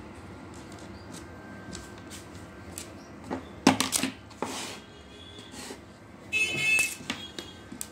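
Tools and small parts being handled on a workbench: a cluster of sharp knocks and clatter about halfway through, then a short rattling scrape with a ringing edge near the end, over a steady low background hum.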